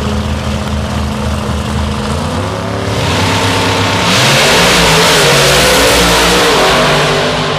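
Two door-slammer drag cars' race engines running on the starting line, revving up, then launching at full throttle about four seconds in. The full-throttle run is the loudest part and begins to fade near the end as the cars pull away down the strip.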